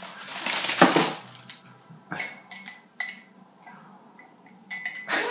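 Hard plastic novelty straw knocking and scraping against a ceramic mug as it is put in and handled: a clatter in the first second, then a few separate short knocks.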